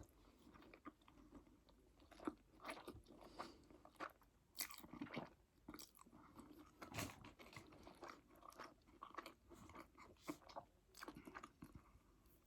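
A person eating close to the microphone: quiet, irregular crunching bites and chewing, with soft clicks and smacks of the mouth.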